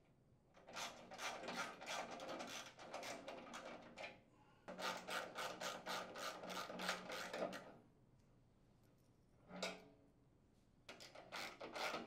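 Ratcheting driver with a half-inch socket clicking in quick runs, about five clicks a second, as it backs out the small mounting screws on the sheet-metal flail housing. There are three runs separated by short pauses, and one brief burst.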